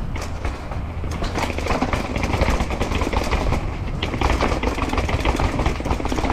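Wind rumbling on the microphone while a downhill mountain bike rides over rough ground, its chain and frame rattling with many quick clicks and knocks.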